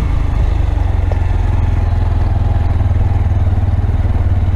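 Honda Grom's 125 cc single-cylinder four-stroke engine running at a steady low speed as the motorcycle is ridden, picked up by the action camera's built-in microphone.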